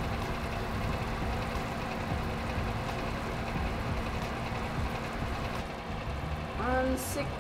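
Steady hum of a hot wall oven's fan running with the oven door open. A short voiced hum near the end.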